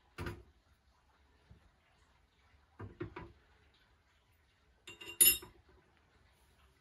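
Cast aluminium pieces set down on the metal pan of a digital weighing scale. A clunk comes just after the start and a double knock about three seconds in, as the ingots go on. A louder, bright metallic clink follows about five seconds in, as the small aluminium gecko casting is laid on top of an aluminium bar.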